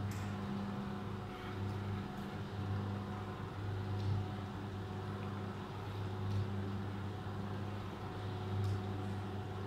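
Electric motor of a ceiling-mounted curtain lifting system running with a steady hum as it lowers the curtain track on its cables.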